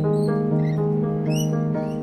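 Background music of held notes changing about every half second, with short high squeaky chirps over it about one and a half seconds in.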